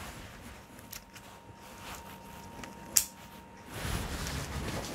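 Soft handling of a paintball mask worn on the face: quiet rustling with one sharp click about three seconds in.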